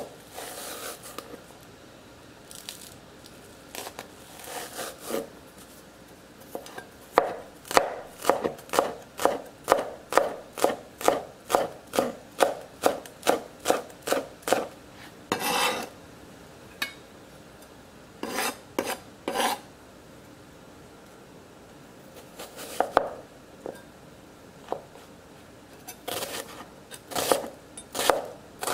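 Chef's knife chopping scallion whites on a plastic cutting board: a quick, even run of knocks, about three a second, from about seven seconds in to about fifteen, then a few scattered cuts, and near the end a shallot being sliced.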